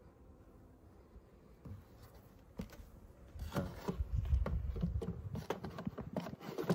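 Wooden hive floor being handled: wood rubbing and scraping with small knocks, starting about halfway through and lasting about three seconds.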